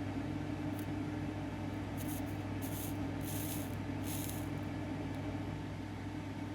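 Several short hisses, about 2 to 4.5 seconds in, consistent with flux sizzling as the soldering iron melts solder into the stranded wire, over a steady low electrical hum.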